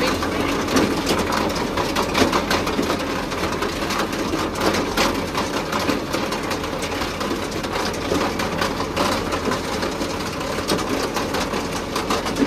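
Tractor engine running steadily while a silage feed-out wagon runs, its conveyor spilling grass silage out the side, with a constant clattering rattle of chain and metal over the engine.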